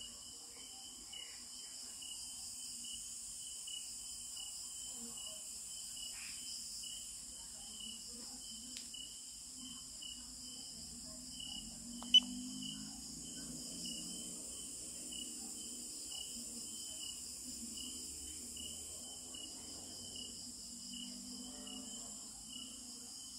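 Insects chirping steadily in a fast, even pulse. A single sharp click about halfway through.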